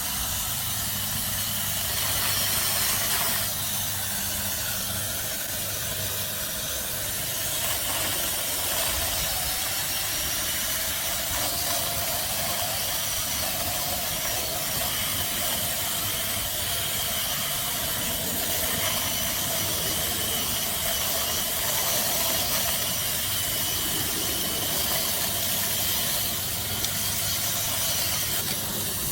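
Battery-powered mini chainsaw running steadily: an electric motor's low hum under an even, hissing whir of the chain.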